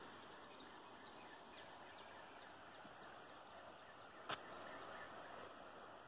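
Faint rush of a flooded river, with a bird giving a run of short, high, falling chirps. A single sharp click sounds about four seconds in.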